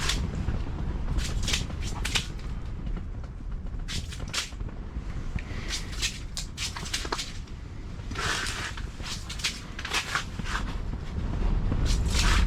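Low rumble of wind on the microphone, with a dozen or so short sharp clicks and knocks scattered unevenly through it, like gear being handled.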